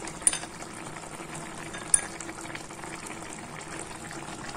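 Bombay duck (lote fish) simmering in its own released juices in a kadai, a steady bubbling, with two brief clicks, about a third of a second and two seconds in.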